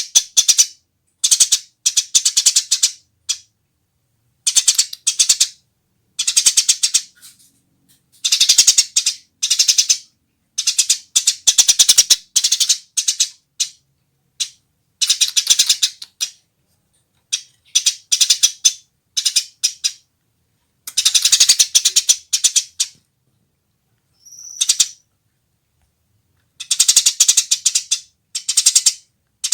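Eurasian tree sparrow chattering in repeated bursts of rapid, dry, high chirps, each lasting a second or two with short pauses between, plus one brief clearer note about two-thirds of the way through.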